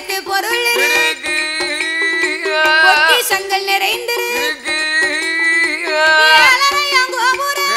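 Villupattu music: a singer's ornamented melody over a steady held drone note, with a percussion beat.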